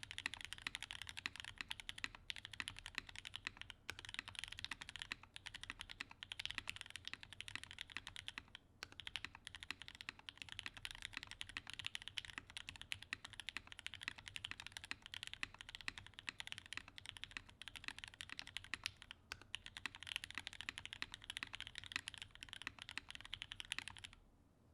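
Fast, continuous typing on a custom mechanical keyboard: Gateron Hippo linear switches, lubed and filmed, in a brass-weighted aluminium-plate Monokei KFE CE, with CRP Tulip keycaps. Dense keystroke clicks with brief pauses, stopping just before the end.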